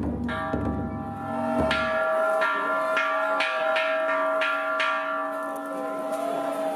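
Bells struck about six times, half a second or so apart, each ringing on in a cluster of steady tones over a low sustained hum; a deep drum rumbles under them and stops about two seconds in.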